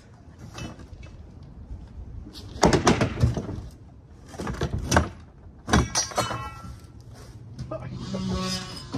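Hollow plastic shed panels being wrenched loose and handled, clattering and creaking in clusters of knocks, the loudest about three seconds in and again around five to six seconds.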